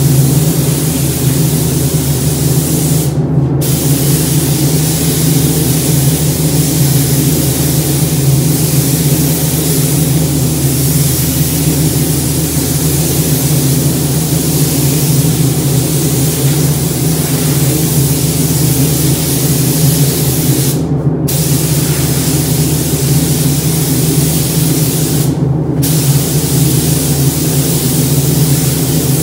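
Gravity-feed paint spray gun hissing steadily as compressed air atomises paint onto a car panel. The hiss cuts out briefly three times, as the trigger is let go between passes, over a steady low hum.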